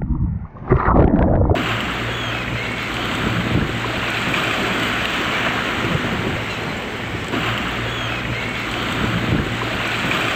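Heavy storm surf with wind: a steady rush of breaking waves. The first second and a half is muffled, gusty buffeting of wind on the microphone, which cuts abruptly to the fuller, even roar of the surf.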